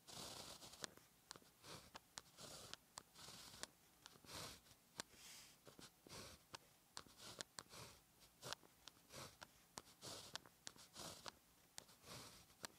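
Faint pen-on-paper writing: a string of short scratchy strokes with small sharp ticks as the pen tip touches down and lifts between strokes.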